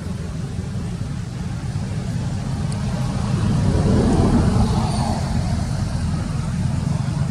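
A motor vehicle passing by, building to its loudest about four seconds in and then fading, over a steady low rumble.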